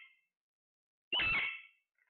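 A ringing metallic clang about a second in, dying away over half a second, with the tail of an earlier clang fading at the start.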